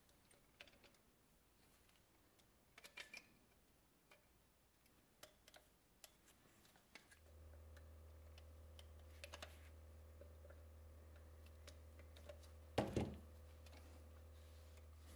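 Faint, scattered clicks and clinks of the toy cement mixer's small painted sheet-metal parts being handled and bent with pliers during reassembly. About halfway in a low steady hum starts, and near the end there is one sharp metal clack, the loudest sound.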